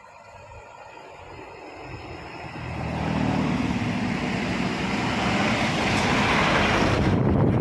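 A vehicle passing close by: its noise, a low rumble with a hiss over it, swells over the first three seconds and then stays loud.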